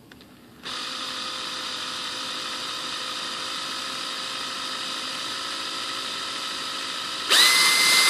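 Power drill with a small bit drilling a screw hole through a servo cover plate into a model glider's wing. The motor starts about half a second in and runs steadily at a low speed, then speeds up sharply near the end into a louder, higher whine.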